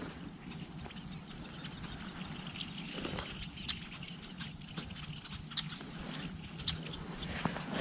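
Quiet open-marsh ambience: a steady low hiss with scattered short, high bird chirps every second or so.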